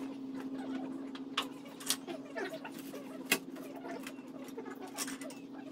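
Scattered light knocks and clicks of wooden blocks and tools being handled, a few sharper ones standing out, over a steady low hum.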